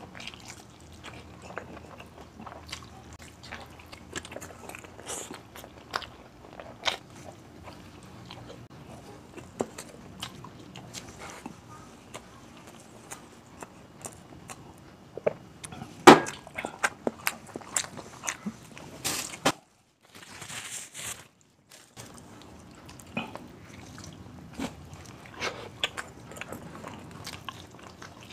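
Close-miked eating sounds: chewing and wet lip-smacking on beef kaldereta and rice eaten by hand, with many small sharp clicks. A drink of water from a glass partway through, then a loud knock a little past halfway.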